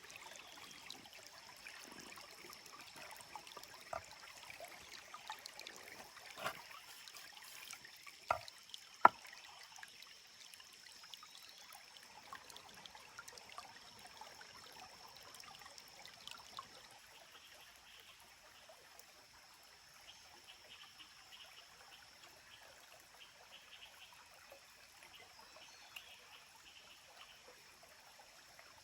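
A stream trickling steadily, with a few sharp knocks between about four and nine seconds in, the loudest near the end of that run.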